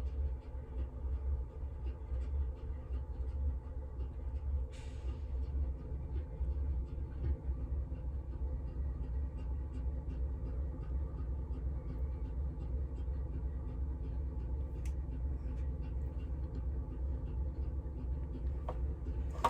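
Steady low hum, with faint scattered ticks and a brief soft rustle about five seconds in.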